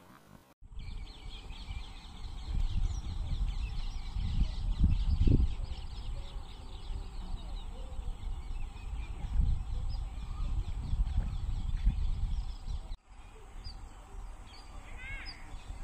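Outdoor ambience of wind gusting on the microphone under a dense chorus of small birds chirping. Near the end the wind drops away and a few separate bird calls stand out.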